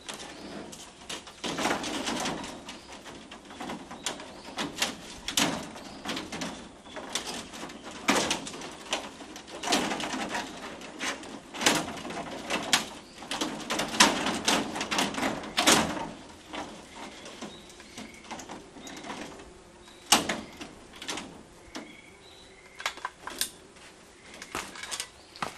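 A clear corrugated plastic roofing panel being handled and fitted onto wooden roof rafters: irregular clattering knocks, clicks and scrapes of the panel against the frame. They come thick and fast for the first sixteen seconds or so, then more sparsely.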